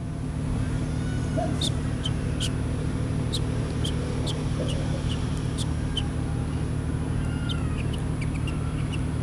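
Small birds chirping: short, high, downward-falling chirps about two a second, pausing briefly past the middle, over a steady low electrical hum.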